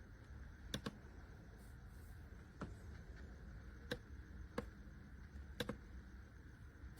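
Five sharp clicks at irregular intervals, the first and last of them doubled, over a faint low hum.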